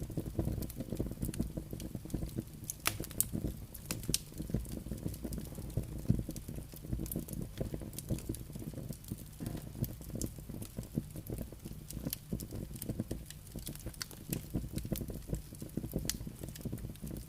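Wood campfire crackling, with frequent sharp irregular pops over a steady low rumble.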